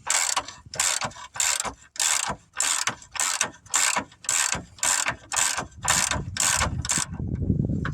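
Half-inch drive socket ratchet clicking in quick back-strokes, about two a second, as it spins out a freshly loosened 18 mm lower control arm bolt; the strokes stop about seven seconds in.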